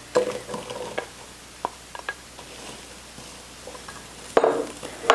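Diced onion scraped from a bowl with a spatula into a pot of hot roux: light taps and scrapes over a faint sizzle, with a louder knock about four seconds in.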